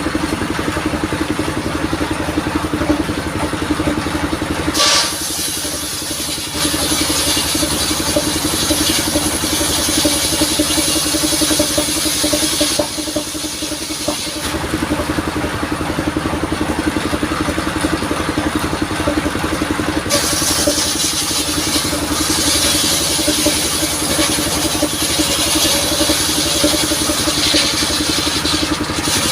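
Engine of a modified saw vehicle (mobile sawmill) running steadily while it saws coconut-palm wood. The harsh high-pitched cutting noise rises over the engine in two long stretches, from about five seconds in to about thirteen, and again from about twenty seconds in.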